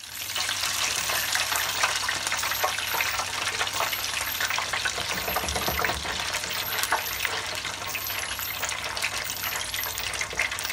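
Food deep-frying in hot oil: a steady crackling sizzle with many small pops.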